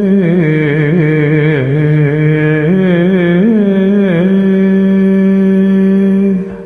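Wordless Carnatic-style singing over a steady drone: a voice ornaments a melody with gliding turns of pitch, then settles on a long held note that fades out near the end.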